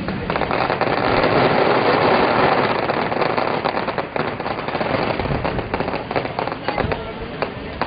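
Fireworks going off in a dense barrage of crackles and pops. The barrage swells over the first couple of seconds and thins to scattered crackles toward the end.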